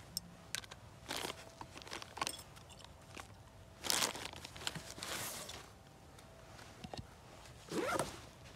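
Gloved hands rummaging in a fabric rucksack and pulling out food packets and jars: rustling of the bag and crinkling plastic packaging, with a few light knocks. The loudest rustles come about four seconds in and near the end.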